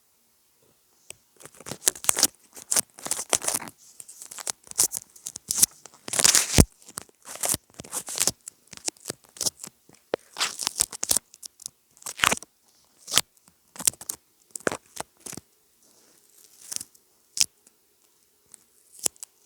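Close-miked crinkling, tearing sounds in quick, irregular bursts, from something being handled.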